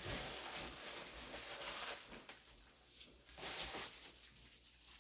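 Faint rustling and handling of a parcel's packaging and the book taken from it. It is busiest in the first two seconds, with another short rustle a little past three seconds.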